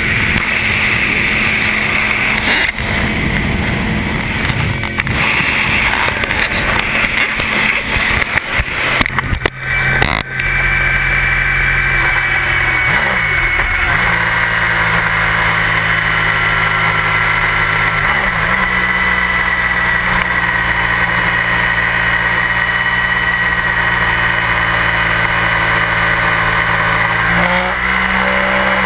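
Inline-four sport bike engine at highway speed under heavy wind noise on the camera. For the first ten seconds the wind buffets irregularly, with knocks as the camera is handled. After that the engine settles into a steady hum whose pitch shifts a few times.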